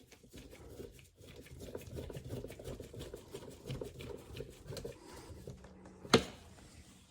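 Door-panel screw being driven into the plastic trim: a rapid, scratchy run of small ticks as it turns, then one sharp click about six seconds in.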